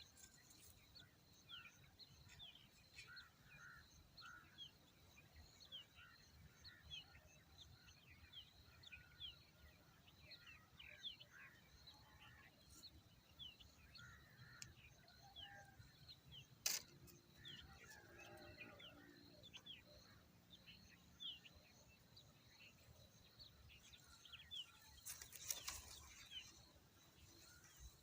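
Birds chirping faintly, a steady run of short, falling chirps, with one sharp click about two-thirds of the way through.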